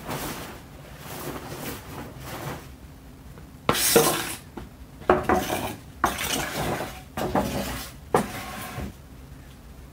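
Gear being shifted by hand on a patio: soft rustling, then a run of about five sharp metallic clanks and clatters, each ringing briefly, the loudest a little under four seconds in.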